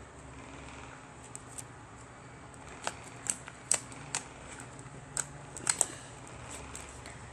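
Slime being played with by hand: about a dozen sharp clicks and pops, bunched in the middle few seconds, over a faint steady background hum.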